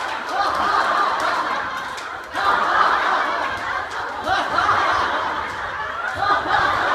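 A group of people laughing together, many voices overlapping continuously.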